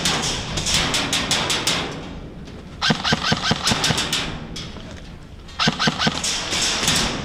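Airsoft rifle firing on full auto: three bursts of rapid shots, each a quick run of sharp clicks, with short gaps between them.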